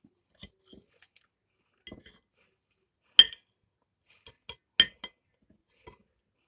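Metal knife and fork clinking and scraping against the dish while cutting into a pastry slice: a scatter of short, sharp clinks, the loudest about three seconds in and just before five seconds in.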